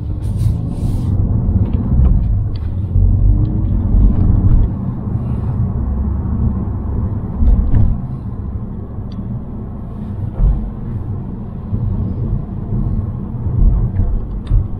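Mountune M330-tuned Ford Focus ST Mk4's 2.3-litre EcoBoost four-cylinder and road noise while driving: a steady low rumble that swells and eases several times as the car pulls along.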